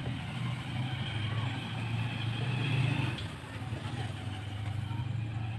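A motor vehicle engine running with a steady low hum that grows louder until about halfway through, then eases off.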